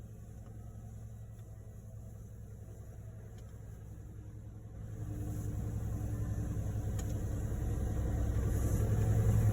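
A truck engine running steadily with a low hum, growing gradually louder over the second half.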